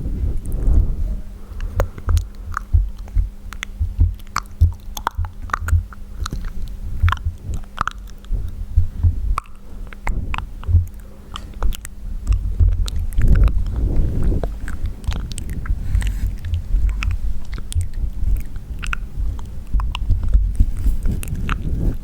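Close-miked wet mouth sounds: a dense, irregular run of smacks and clicks, with soft low thuds underneath.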